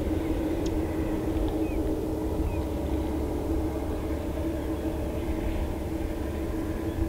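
Steady low mechanical rumble with a held drone, the kind of sound a distant engine or traffic makes, unchanging throughout. A couple of faint short high chirps sound about two seconds in.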